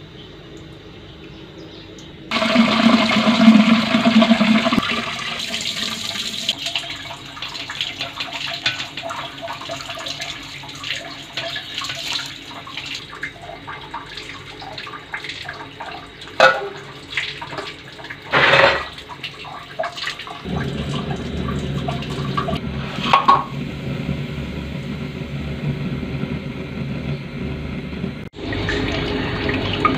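Water running and splashing as rice is washed and an aluminium cooking pot is filled, with a few sharp metal clanks of the pot in the middle. A steadier low rushing takes over in the last third.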